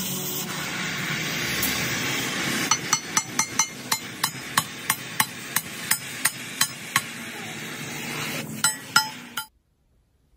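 Hammer striking metal in a quick, even run of blows, about three a second, over a steady hissing noise. Two harder blows come near the end, then the sound cuts off suddenly.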